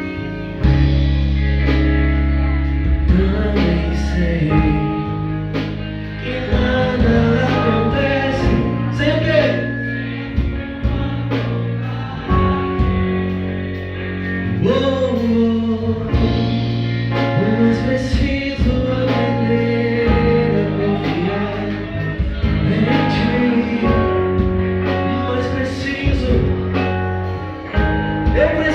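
A band playing a gospel song: a sung melody over sustained bass and accompaniment, the voice coming in about three seconds in.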